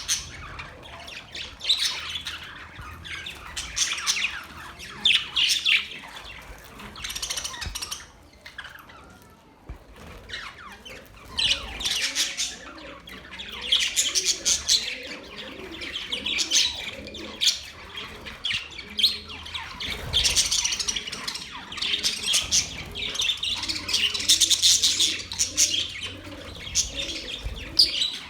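Several budgerigars chirping and warbling in a dense, continuous chatter of quick high notes, with a brief lull about a third of the way in.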